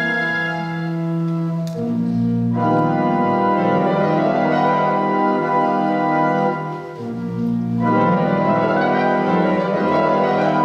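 Organ playing loud sustained chords, moving to new chords about two seconds in and again near eight seconds.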